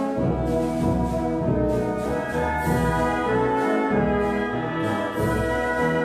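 Symphony orchestra playing a stately piece with the brass to the fore, in long held chords.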